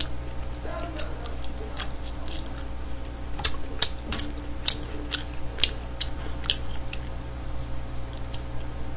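Close-miked eating of smoked chicken with the fingers: chewing and lip-smacking in irregular sharp wet clicks, about three a second, over a steady low electrical hum.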